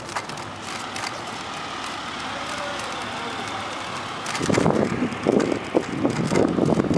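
Wind and rolling noise from a moving bicycle. About four seconds in it turns into loud, irregular wind buffeting on the microphone.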